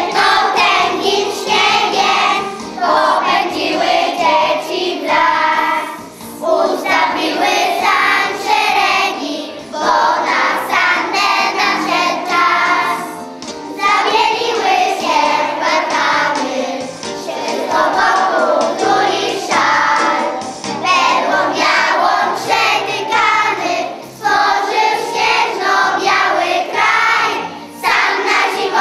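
Children's choir singing together, in phrases broken by short pauses for breath every few seconds.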